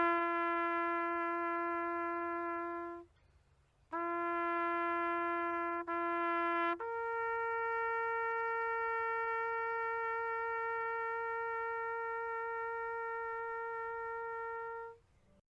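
Music of long held brass notes, trumpet-like: a low note, cut by a second-long gap and then a brief break, followed by a higher note held for about eight seconds before it stops.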